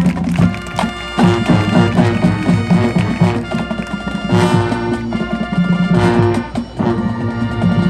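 High school marching band playing loudly: brass holding full chords over drum strokes.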